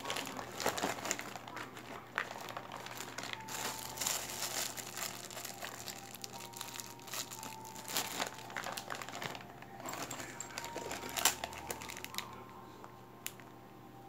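Clear plastic zip-lock bags crinkling and rustling in irregular bursts as hands pick them up, squeeze and turn them over.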